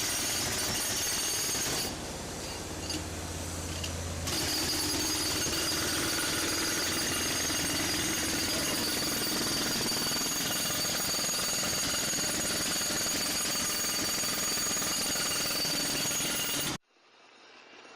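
Jackhammer hammering continuously with a rapid, dense clatter, easing off for about two seconds near the start, then resuming and cutting off suddenly near the end.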